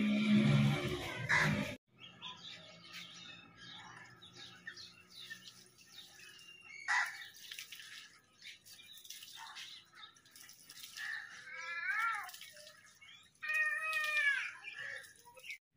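Tap water running and splashing as hands wash a face, cut off abruptly about two seconds in. After that come faint scattered chirps and two drawn-out, arching animal calls near the end.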